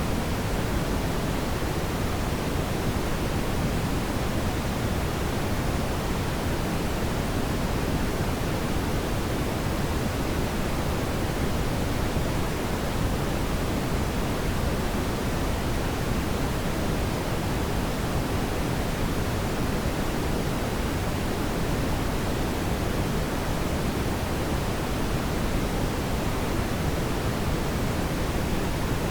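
Steady brown noise: an even, deep rushing hiss weighted toward the low end, unchanging throughout.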